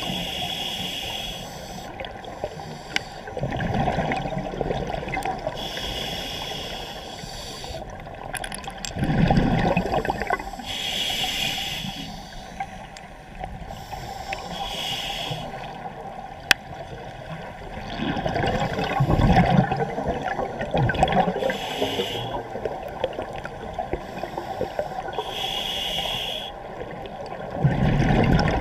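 Scuba diver breathing through a regulator underwater: a short hiss of inhalation through the demand valve about every four to five seconds, alternating with the low bubbling of exhaled air.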